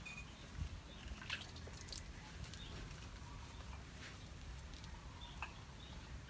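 Faint splashes and drips of water as a wet dog is washed by hand at a tub, with a few scattered soft clicks over a steady low rumble. A few short high chirps sound in the background.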